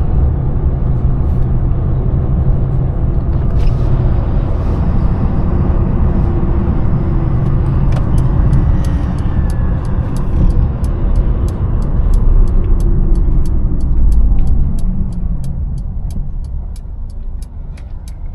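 Twin-charged Mercedes engine and drivetrain running steadily under way, with a deep rumble that eases off about fifteen seconds in. A steady, rapid ticking runs through the second half.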